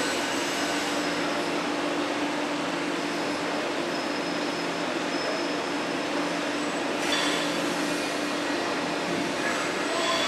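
Steady hum and hiss of a Hessapp VDM 1000 vertical turning center running with no cutting, while its touch probe measures the workpiece. Brief swells of hiss about seven seconds in and again near the end.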